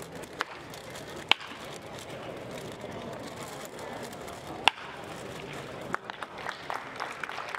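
Sharp cracks over a steady outdoor murmur: a light one, then two loud ones a few seconds apart, with a patter of smaller clicks starting near the end.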